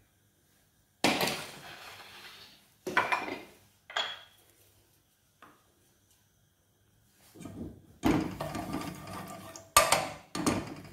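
Kitchen utensils clattering: a few separate sharp knocks in the first half, then a wooden spoon scraping and knocking around the bottom of a metal stockpot in the second half.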